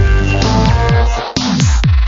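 Electronic dance music with a heavy beat: deep kick-drum strokes that slide down in pitch, with sustained synth chords above.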